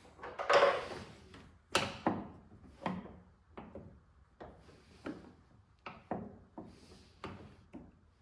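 A string of separate knocks and clunks, about one every half second to second, loudest in the first two seconds and fainter after.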